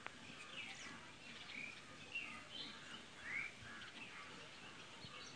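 Faint outdoor birdsong: scattered short chirps and brief rising and falling whistles over a low background hiss.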